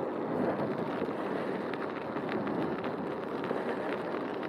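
Wind rushing over the microphone and tyre noise from a bicycle rolling along a paving-stone trail: a steady noise with a few faint light ticks midway.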